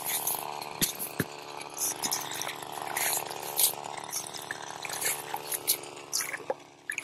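Slotted ice scoop dipping into a freshly augered hole in lake ice, scraping and splashing as it skims out slush and ice chips, in quick short strokes. A power ice auger's motor runs steadily underneath and fades out near the end.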